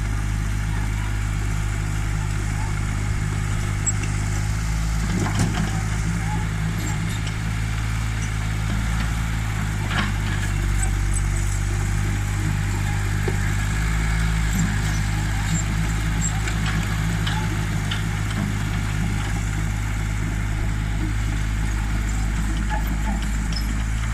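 Old backhoe loader's engine running steadily while it works soil, with a few short knocks about five and ten seconds in.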